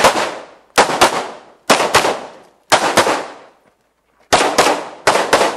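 Semi-automatic pistol fired in quick pairs of shots, the pairs about a second apart, with a longer pause before the last two groups; each shot trails off in a short echo.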